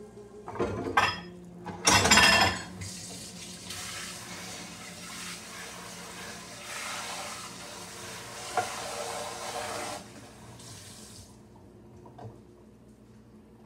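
Kitchen tap running into a sink for about eight seconds, then shut off. A few knocks and a clatter of dishes come just before the water starts.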